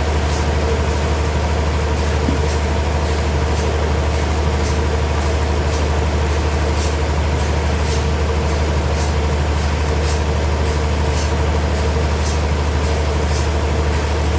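Heavy sawmill machinery running steadily: a constant low hum with a held mid-pitched tone, and short high hisses recurring every second or so.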